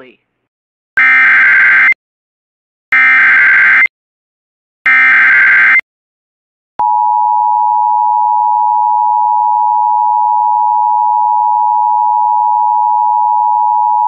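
Emergency Alert System SAME header: three one-second bursts of warbling digital data about two seconds apart, followed from about seven seconds in by the steady two-tone attention signal. Together they mark the start of an emergency alert, here a flash flood warning.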